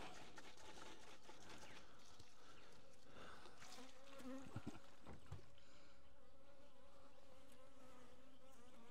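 Honey bees buzzing steadily around the hive in a faint, even hum, with a few soft clicks about halfway through.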